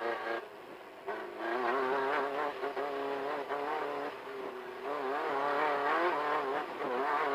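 Engine of a VW Beetle-based off-road race car heard from on board, its revs rising and falling as the throttle is worked. The engine drops back about half a second in and picks up again a second later.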